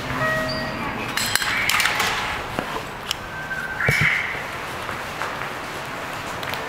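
Railway station ambience: scattered clicks and knocks, with short electronic beeps and a brief burst about four seconds in.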